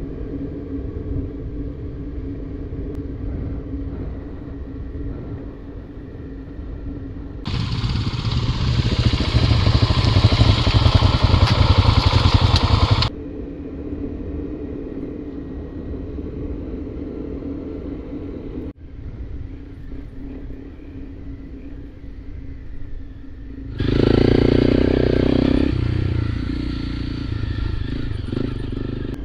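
Off-road vehicle engine running steadily under way with a low drone. It turns much louder and rougher for about five seconds a quarter of the way in, and again near the end, each louder stretch starting and stopping abruptly.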